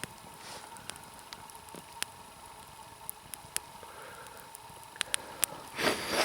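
Wood campfire burning with scattered sharp crackles and pops, and a brief louder rustle near the end.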